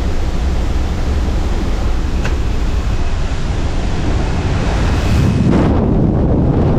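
Loud rush of wind and aircraft engine noise at the open door of a small high-wing plane in flight, buffeting the helmet camera's microphone. A little past five seconds in, as the wingsuit flier leaves the door, the hiss thins out and a heavy low wind rumble remains.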